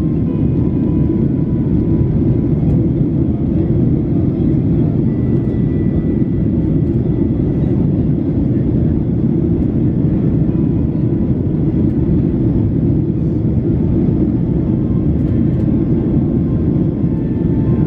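Steady cabin noise of a Boeing 737-800 climbing after takeoff: the low rumble of its two CFM56-7B turbofan engines mixed with airflow over the fuselage, heard inside the cabin from a window seat over the wing.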